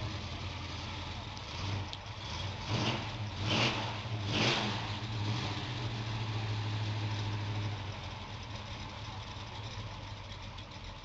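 Classic Dodge muscle car engine idling with a low, steady rumble, revved three times in quick succession a few seconds in, then settling back to idle.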